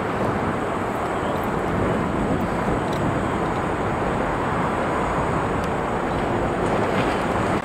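Steady rumble of road traffic, cars and lorries passing on a motorway viaduct.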